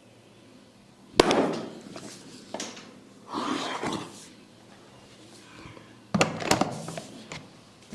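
Sharp smacks of a barber's hand head massage: one loud smack about a second in and two close together about six seconds in, with a brief rustling sound between them.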